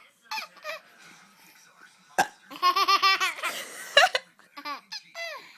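Baby laughing in bursts: a long run of rapid, high-pitched giggles midway, then shorter squeals that fall in pitch near the end. Two sharp knocks come in between.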